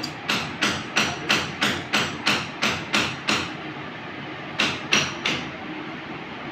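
A hammer striking in a steady rhythm, about three blows a second, eleven in a row, then a short pause and three more blows.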